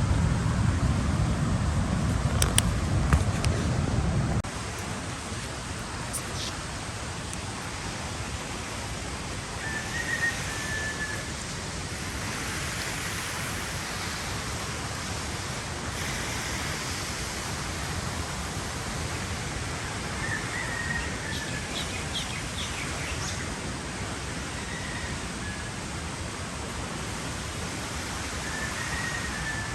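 Steady outdoor hiss with a bird chirping now and then: short, slightly falling calls, four or so times. A heavy low rumble on the microphone, like wind buffeting, cuts off suddenly about four seconds in.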